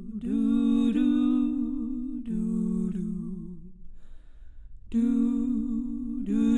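Women's voices singing slow, wordless held notes in close harmony with vibrato, a cappella. The singing breaks off for about a second a little past halfway, then resumes.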